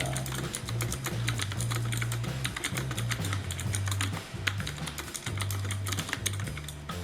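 Fast typing on a Nixeus mechanical keyboard: a quick, uneven run of key clicks and clacks, over background music with a bass line.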